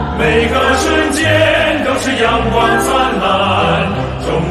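Massed choir singing with an orchestra over a held bass, with a light percussive tick about once a second.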